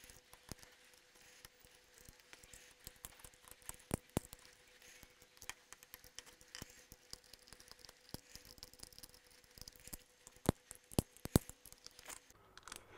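Faint scattered clicks and light scratching as a blade cuts away the thread binding on a fishing rod's tip eye, a few sharper snicks near the middle and again near the end, over a faint steady hum.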